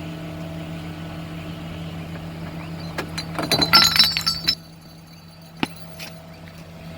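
A steady low hum, then, about three seconds in, a short flurry of clinks and rattles with ringing high tones lasting about a second and a half. A single click follows a second later.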